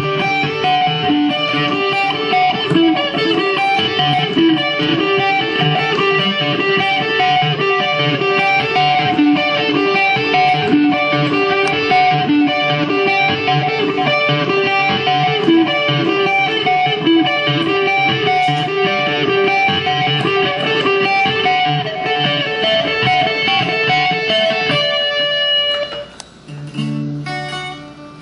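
Guitar music with fast, evenly picked notes running steadily. It drops away briefly near the end before a new, lower strummed part begins.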